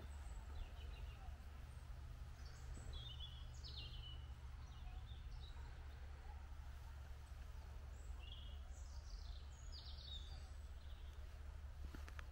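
Wild birds chirping in short, high, sweeping phrases, several times over the few seconds, above a steady low outdoor rumble.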